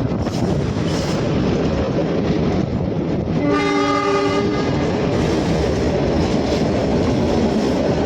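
Narrow-gauge Shimla toy train running, its wheels rumbling and clattering on the rails, with one horn blast of about a second midway.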